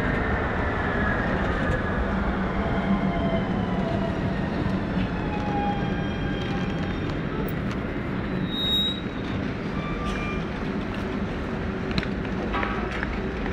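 Bombardier Guided Light Transit guided electric bus rolling past close by and slowing to a stop, its electric drive whining in several tones that slide downward over a steady low rumble.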